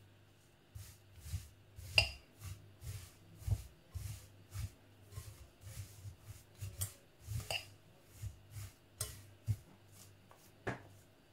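A spatula stirring and folding a sticky chocolate-coated puffed-rice mixture in a glass bowl. It makes a run of short scrapes and knocks, a few a second, with a few sharper clinks against the glass.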